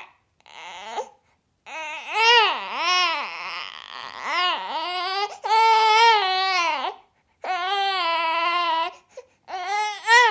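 Newborn baby crying in a string of wailing bouts, each rising and falling in pitch, with short breaths between them. The longest wail comes about halfway through.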